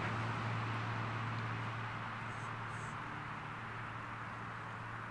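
Steady low hum of a motor vehicle's engine with a haze of noise, slowly fading.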